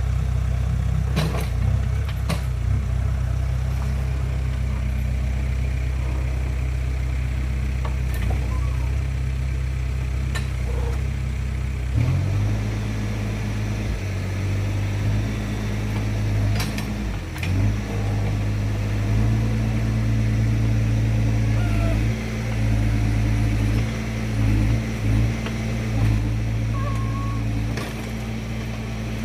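A heavy vehicle's diesel engine running steadily, shifting to a different pitch about twelve seconds in, with a few sharp knocks along the way.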